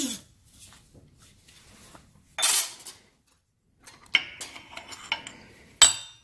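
Steel dimple die pieces and a thin steel sheet being handled on a steel press plate: a brief burst of noise about two and a half seconds in, then several ringing metal clinks from about four seconds, and one sharp metal clank near the end.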